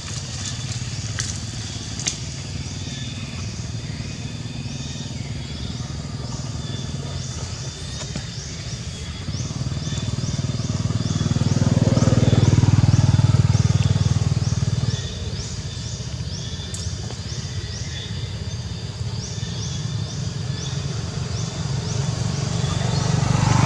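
Engine of a motor vehicle running, swelling louder twice as it passes, over a high, rhythmic chirping repeating a few times a second.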